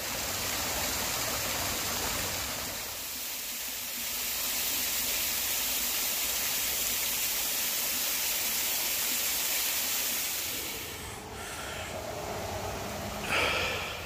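Steady rushing hiss of water tumbling over rocks in a creek cascade and waterfall. It fades about eleven seconds in, leaving quieter rustling and scuffing, with a brief louder scrape near the end.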